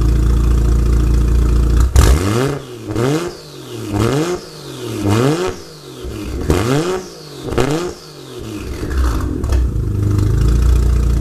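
Toyota 1JZ inline-six in a drift truck, heard at its side-exit exhaust through the bedside: idling, then blipped about six times in quick succession, each rev rising and dropping away, before settling back to a steady idle near the end.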